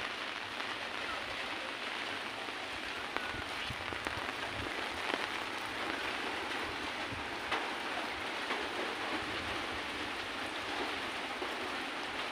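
Steady rain falling, an even hiss with a few faint single drip-like taps.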